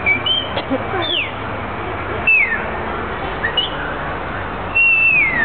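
Whistling: a string of short chirpy whistled glides, most of them falling in pitch, then a longer whistle sliding down near the end, over a steady background murmur.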